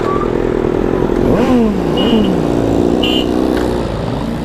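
Motorcycle engines running in traffic. A vehicle's engine passes about a second in, its pitch falling as it goes by. Two short high beeps come near the middle.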